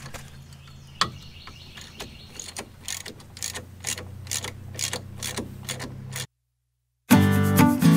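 Hand ratchet clicking, about three or four clicks a second, as it turns the 17 mm bolt holding the front strut to the steering knuckle. The clicks stop short near the end, and guitar music comes in after a brief silence.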